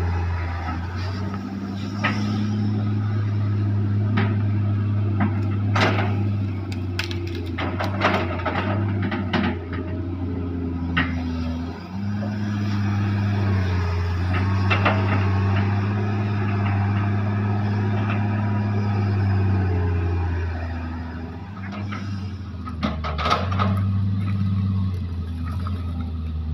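Hitachi EX200 excavator's diesel engine running under changing load, the note dipping briefly about halfway through and again near the end. Sharp wooden knocks of logs being gripped and stacked, in a cluster about a quarter of the way in and again near the end.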